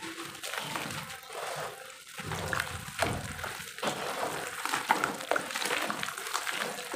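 Roasted dirt crumbling from the hand into a basin of water, then both hands squishing and sloshing it into muddy water, with wet crackles and small splashes.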